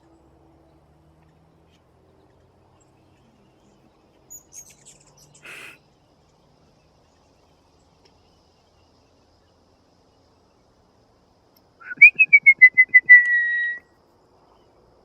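A bird's whistled call: a loud, pulsed whistle that slides down in pitch and ends on a held steady note, lasting about two seconds near the end. Faint, high chirps come a few seconds in.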